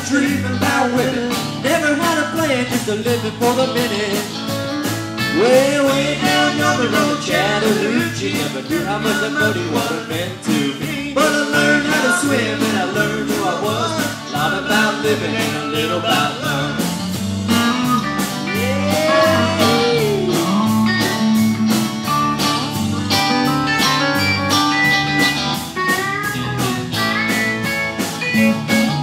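Live country-rock band playing: two electric guitars, electric bass and a drum kit, with a steady beat.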